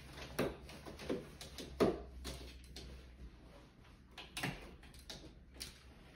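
Curtain rod and blackout curtains being handled and fitted overhead: a string of sharp, irregular clicks and knocks, about seven of them, the loudest about two seconds in.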